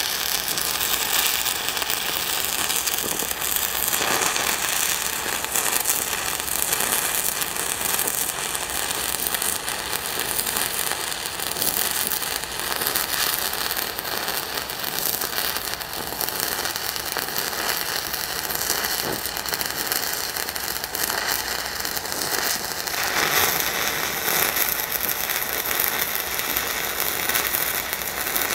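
E6010 stick-welding arc on a 1/8 inch rod, crackling steadily as a digging root pass is run into the gap between the beam's web and flange.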